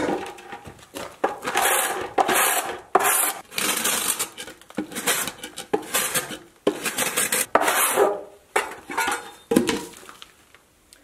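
A scraper scraping concrete residue off a wooden formwork plank to clean it for reuse: about a dozen rough, rasping strokes in an uneven rhythm, stopping shortly before the end.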